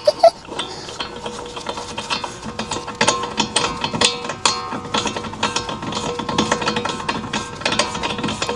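Ratchet wrench clicking rapidly and continuously, working the bolts of a wheel hub and bearing assembly, with a faint steady hum beneath.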